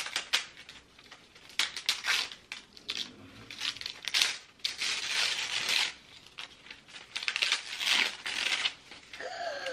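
Gift wrapping paper being torn and crumpled off a box by a small child's hands: a run of irregular rips and rustles.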